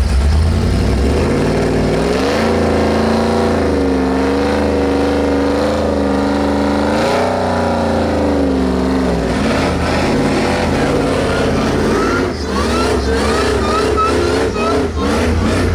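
Ford Lightning pickup's V8 engine revving hard: pitch climbs about two seconds in, holds high, and falls away around nine seconds. Near the end comes a series of short rising pitch steps.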